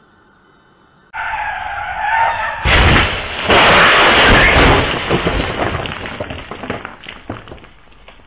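Car crash picked up by a security camera's microphone: a wavering tyre screech as the car skids, then a loud impact as it smashes through a stone wall. A couple of seconds of heavy crashing follow, trailing off into scattered clattering debris.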